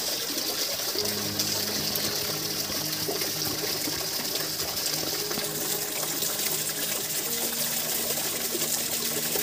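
Steady rushing of flowing water, with faint held low tones underneath that change pitch every second or so.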